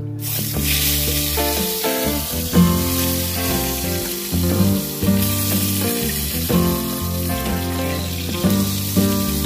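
Eggplant slices sizzling in hot oil in a wok, the hiss starting the moment they are laid in and holding steady. Background music plays throughout.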